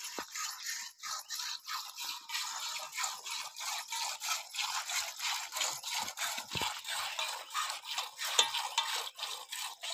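Water buffalo being hand-milked: milk squirting into a steel bucket in quick hissing streams, about three or four squirts a second.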